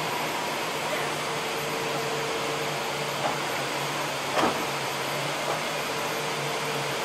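Steady assembly-plant machinery noise, a constant hum and hiss, with a few short knocks, the loudest about four and a half seconds in.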